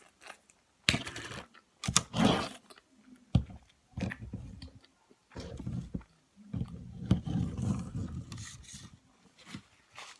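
Close-miked eating sounds: chewing and wet mouth noises in uneven bursts, with sharp clicks.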